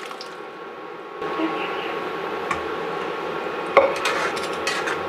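Boiled chickpeas and their cooking water poured from a pressure cooker into a hot kadai, with the liquid in the pan giving a steady noise from about a second in. Then a spatula knocks loudly against the pan once and clatters and scrapes as the chickpea curry is stirred.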